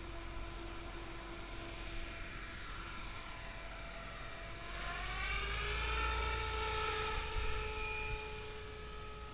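Radio-controlled competition helicopter whining as it takes off and climbs. Its whine rises in pitch about five seconds in and grows louder, then holds steady near the end.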